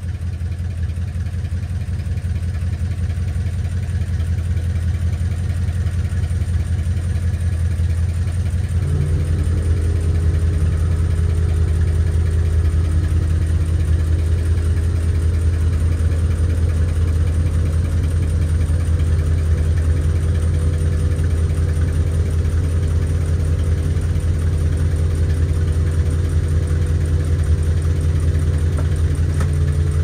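1968 Cadillac DeVille's V8 idling through a dual glass-pack exhaust, heard from inside the cabin. About nine seconds in, an added steady hum with higher tones joins the exhaust note: the air-ride compressor running as the system airs up.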